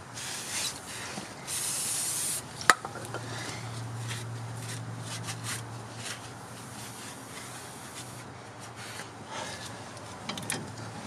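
Shop rag rubbing and wiping inside the steering-knuckle opening of a Dana 60 front axle, scrubbing out old grime in irregular strokes. A short loud hiss comes about a second and a half in, and a sharp click just after it.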